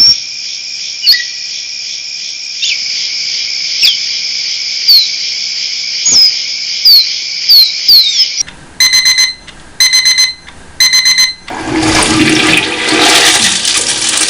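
A sequence of different noises. First a steady high-pitched shrill hum with sharp falling whistles and clicks over it. Then, about eight seconds in, three short bursts of rapid electronic beeping. Then a loud, dense rushing noise near the end.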